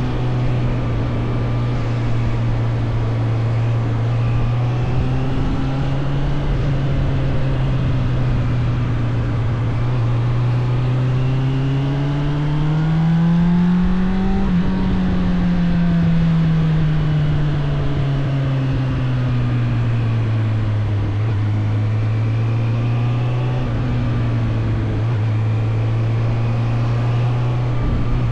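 Suzuki GSF 600 Bandit's inline-four engine running on the move, its revs rising smoothly about halfway through and then easing back down to a steady hum.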